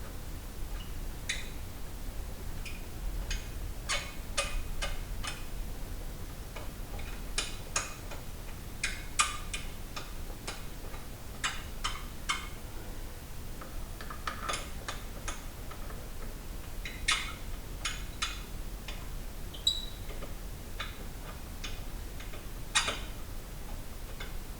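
Irregular light metallic clicks and clinks, some in small quick clusters, as lug bolts are fitted and run in by hand on a car wheel.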